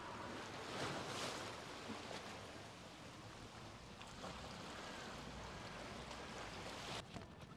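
Small sea waves washing against shoreline rocks, a steady wash that swells about a second in and cuts off abruptly near the end.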